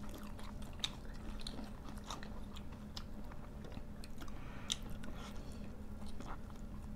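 People chewing and eating chicken and rice, with soft scattered mouth clicks and smacks. A faint steady low hum sits underneath.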